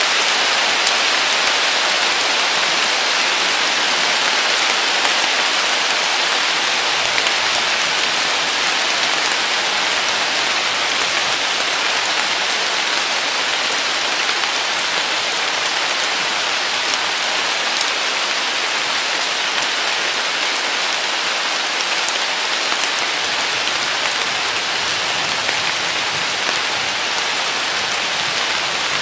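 Heavy summer downpour falling steadily through a weeping willow: a dense, even hiss of rain.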